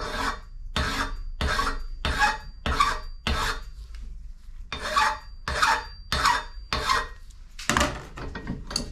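Steel rifle stock screw being hand-filed with a fine file: about a dozen even strokes, roughly one every two-thirds of a second, with a pause of about a second in the middle. This is the finishing pass that smooths the freshly shortened end of the screw.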